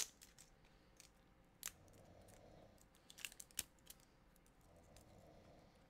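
Faint handling sounds of a lip gloss tube and its packaging: a few sharp small clicks, bunched together about three seconds in, over near silence.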